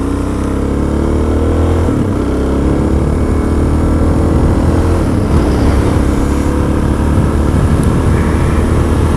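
A vehicle's engine pulling away and accelerating. Its pitch rises, drops at a gear change about two seconds in, climbs again to another shift around five seconds, then holds steady under road and wind noise.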